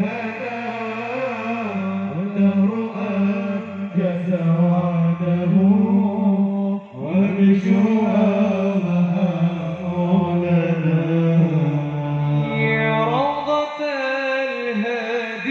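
Amplified male voices singing sholawat: a lead voice in long, winding melismatic runs over a steady low drone, with a brief break about seven seconds in and a rising phrase near the end.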